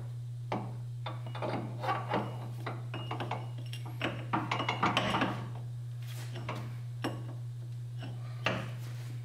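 Scattered metallic clinks, knocks and rattles as a new front CV axle is fed into the wheel hub and lined up by hand, over a steady low hum.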